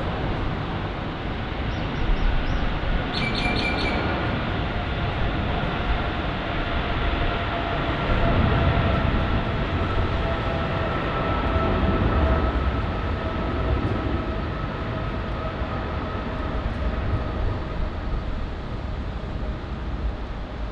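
Boeing 777's jet engines at takeoff thrust: a steady, deep rumble with a faint whine that slowly falls in pitch as the aircraft rolls past and lifts off.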